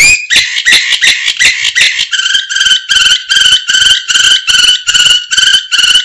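Domestic canary singing: a fast run of repeated short notes, changing about two seconds in to a slower repeated phrase of about three notes a second.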